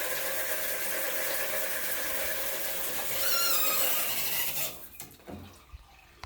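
Shower water spraying steadily from a freshly cleaned shower head at full pressure. A brief squeak comes about three seconds in, and the spray cuts off suddenly near the end.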